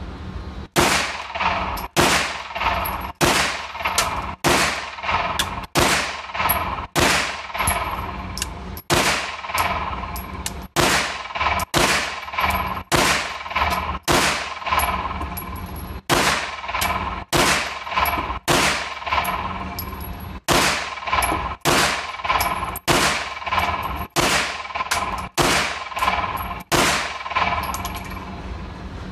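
Canik pistol fired in a long, slow string, about one shot a second, with a ringing echo after each shot.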